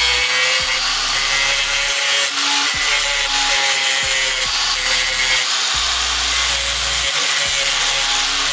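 Electric angle grinder with an abrasive disc grinding the edge of a steel brush cutter blade piece. The motor runs continuously and the disc scrapes against the metal with a steady whine.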